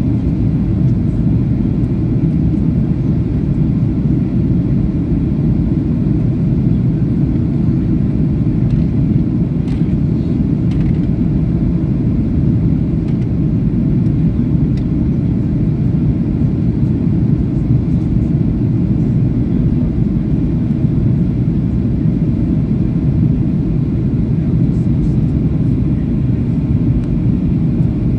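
Steady low roar inside the cabin of a Boeing 737-800 in flight: its CFM56-7B engines and the rushing airflow, heard from a window seat behind the wing.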